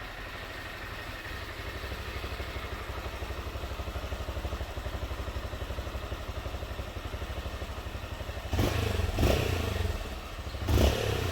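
Honda XRE 190's single-cylinder four-stroke engine idling through its exhaust without the washer fitted, then revved twice briefly near the end.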